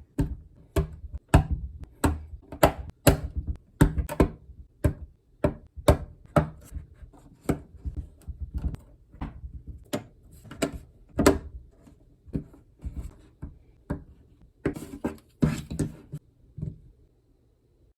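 Plastic Lego bricks clicking and knocking as they are handled and pressed together, irregular sharp clicks about one to two a second that stop near the end.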